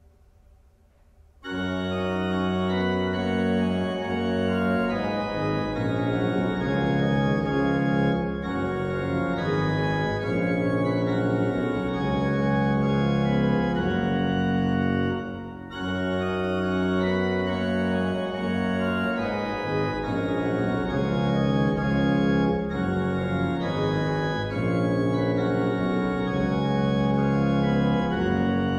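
Pipe organ playing, hands on the manuals and feet on the pedalboard carrying a low bass line; it comes in about a second and a half in after a near-silent pause, with a brief break about halfway through.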